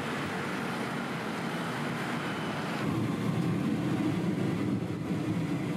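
Steady car and road noise from a taxi under way, its low rumble growing fuller about three seconds in.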